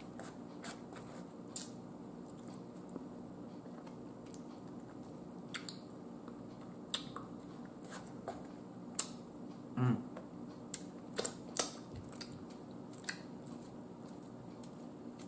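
Close-miked eating sounds of barbecue ribs being chewed: scattered wet mouth clicks and smacks, more frequent in the second half, with a brief low hum of the voice about ten seconds in.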